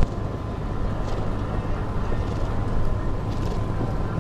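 A steady low rumble of outdoor background noise, with a single sharp knock right at the start.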